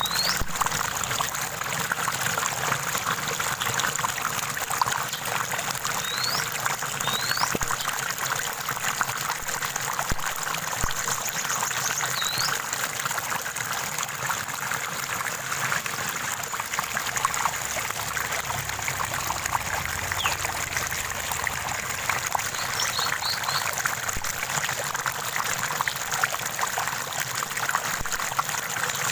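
Small stream of running water trickling and splashing steadily, with a few brief, faint bird chirps scattered through.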